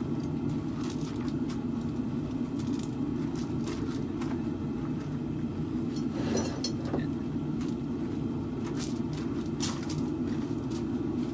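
Propane forge burner running steadily, with a few scattered light clicks over it.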